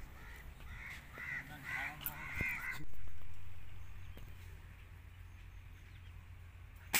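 Crows cawing several times in a row during the first few seconds. Near the end comes a single sharp crack, the shot of an air rifle.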